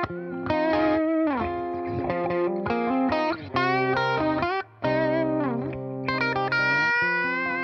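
Electric guitar played through home-built BYOC kit effects pedals: held notes with bends and slides, and a brief break about four and a half seconds in.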